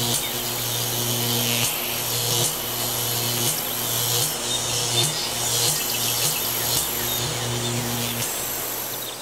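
Mechanical buzzing: a low hum that pulses about once a second under a loud hissing crackle.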